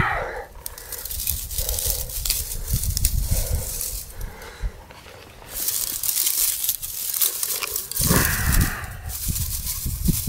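Dry grass tinder rustling and crackling as it is handled and packed into a stone fire ring, with a steady scraping hiss around the middle as a firesteel is struck to throw sparks into it.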